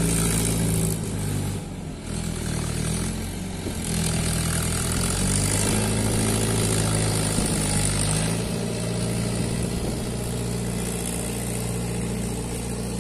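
Farm tractor's diesel engine running steadily as it pulls a disc harrow over dry ground, briefly softer about two seconds in.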